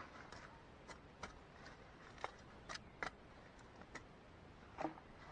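Short-handled hoe chopping and scraping into soil and weeds while weeding: faint, irregular ticks and scrapes, several strikes spaced unevenly.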